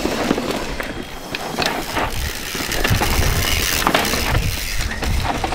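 Downhill mountain bikes passing close on a dry, dusty dirt track: knobby tyres scrubbing and sliding through loose dirt, with scattered clicks and rattles from the bikes.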